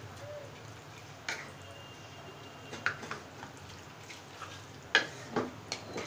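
A spatula stirring and turning chunks of raw marinated beef in a wet marinade in a non-stick karahi, with a few sharp knocks and scrapes of the spatula against the pan, the loudest about five seconds in, over a low steady hum.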